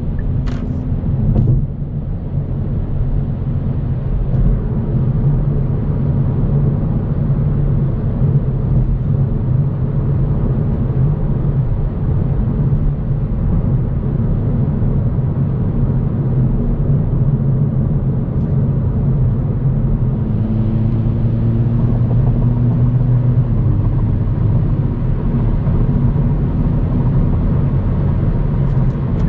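Car cruising at highway speed: a steady low rumble of engine and road noise, with a single short click about half a second in.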